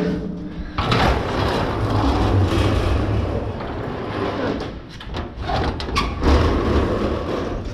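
Collapsible steel scissor gate of a freight elevator being hauled across, its lattice bars rattling and clanking with a run of sharp metal knocks and a low rolling rumble.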